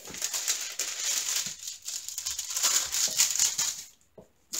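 Clear plastic film over a diamond painting canvas crinkling and rustling as hands smooth and press it flat. It stops for a moment about four seconds in.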